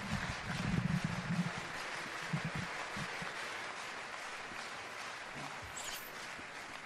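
Arena crowd applauding after a point, the applause fading away over several seconds, with a few short shouts in the first three seconds.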